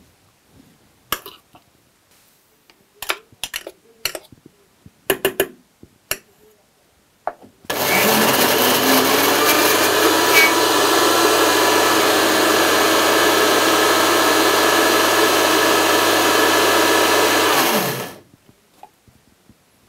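Electric mixer grinder grinding raw prawns to a paste in a small steel jar. A few clicks and knocks come as the jar lid is handled. About eight seconds in the motor spins up, runs steadily and loudly for about ten seconds, then winds down.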